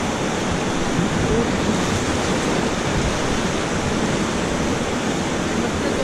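Steady rushing of the Beas River's flowing water around the raft, an even, unbroken wash of noise.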